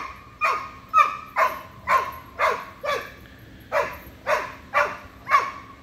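Doberman puppy barking repeatedly at a white-tailed deer across the fence, sharp barks at about two a second that drop in pitch, with a short break a little past halfway.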